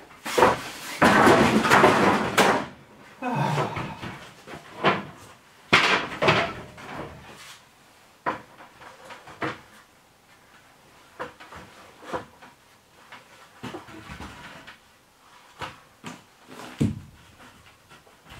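A stepladder being shifted and set down, a scraping clatter for about two seconds near the start, then scattered knocks and taps as lengths of wooden strapping are handled and held against the wall framing.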